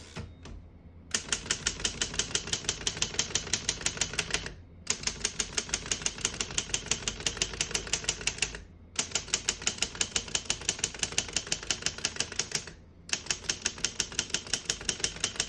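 1934 Underwood No.6 manual typewriter being typed on quickly: its typebars strike the platen about six times a second, in four runs of keystrokes with short pauses between them.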